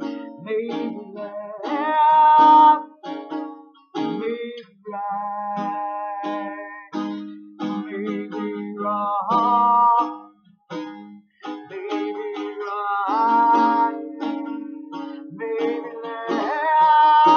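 A woman singing with her own acoustic guitar accompaniment, holding long notes that waver as they end.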